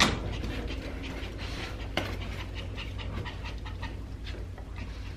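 A dog panting steadily and eagerly, with a sharp tap at the start and another about two seconds in.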